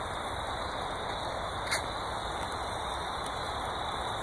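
Sirloin steaks sizzling on a grill grate over hot coals: a steady hiss, with one sharp pop about two seconds in.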